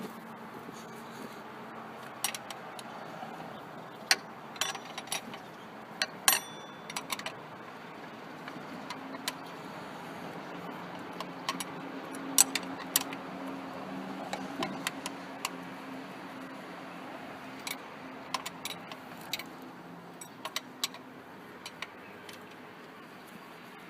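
Scattered sharp metallic clinks and clicks of hand tools and bolts being handled during engine-bay work, over a steady low hum.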